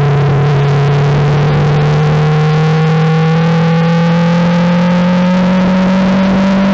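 Formula 4 race car's Ford 1.6-litre turbocharged four-cylinder engine under full throttle in fourth gear, its note rising slowly and steadily as the car accelerates, heard from on board and slightly distorted.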